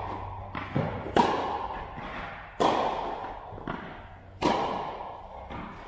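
Tennis rally: three sharp racket strikes on the ball about every one and a half to two seconds, each ringing on in a long echo off the hall's metal walls and roof, with softer ball bounces on the court between the strikes.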